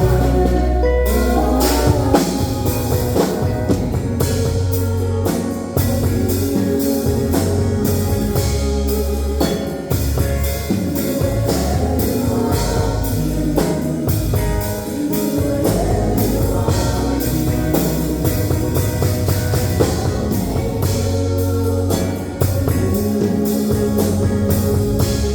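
A band playing with drum kit, guitar and bass, keeping a steady beat, with some singing.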